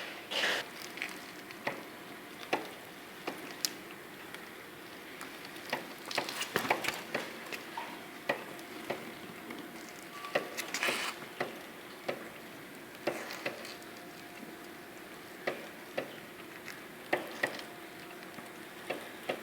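Sharp, irregular clicks and knocks from a Hyosung GV250 Aquila's front sprocket and drive chain as the motorcycle is pushed slowly. The owner traced the noise to chain links seized for lack of lubrication.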